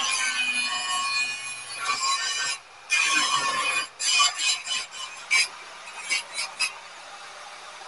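A metal-working tool squeals and scrapes against car spring steel as a blade is shaped. It comes in strokes: a long one, a second about three seconds in, then a run of short bursts, with a quieter hiss near the end.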